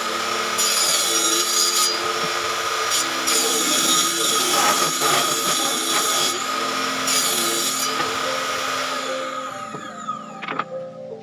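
A power tool running on wood, then dying away near the end, followed by a few sharp knocks of wood being handled.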